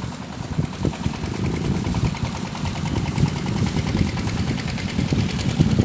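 Small boat engine running steadily at idle, with an even, rapid knocking rhythm.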